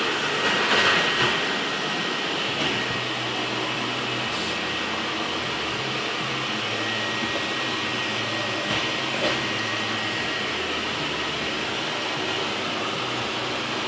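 Vintage Electrolux vacuum cleaner running steadily, a constant motor and airflow noise with a thin high tone over a low hum; it is a little louder and rougher in the first couple of seconds.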